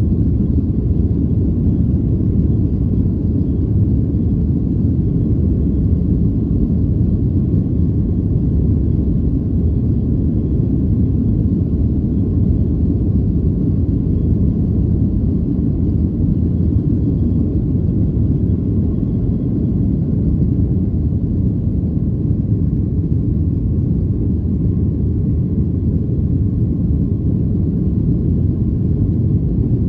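Boeing 737-800 cabin noise during the takeoff roll and climb-out: a loud, steady low rumble from the CFM56-7B engines at takeoff power, heard from inside the cabin.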